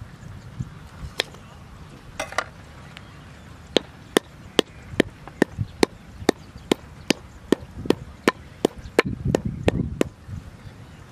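Knife chopping on a round wooden cutting board. A few light, scattered cuts give way about four seconds in to a steady run of sharp knocks, two or three a second, that stops near the end.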